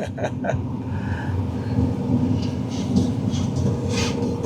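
Combine harvester running steadily while harvesting wheat: a continuous low mechanical rumble with a faint steady hum above it.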